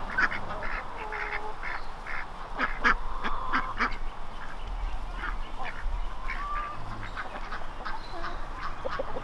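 Domestic ducks quacking: many short quacks in quick, uneven succession, thickest in the first few seconds and thinning out later.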